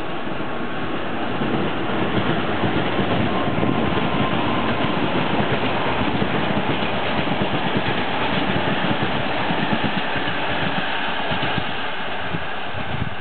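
Passenger coaches of a MÁV express train rolling past on the rails: a steady rumble with rapid, irregular clatter of the wheels, loudest through the middle and easing slightly near the end.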